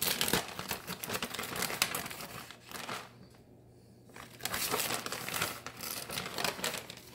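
Plastic bag of shredded cheese crinkling as it is handled, in two spells with a pause of about a second between them.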